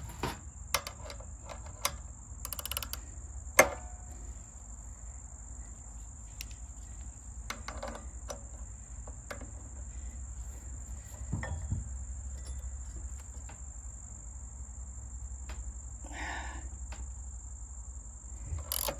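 Scattered sharp metal clicks and knocks of a ratchet and wrench working the crankshaft bolt on a Predator 212's torque converter driver; the loudest knock is about three and a half seconds in, with short rattly clicking runs now and then. Under it is a steady high insect buzz.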